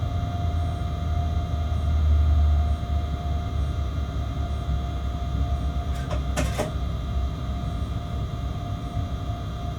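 Freight locomotive running on track, heard in the cab: a steady low rumble with several constant whining tones. A short burst of clacks comes about six and a half seconds in.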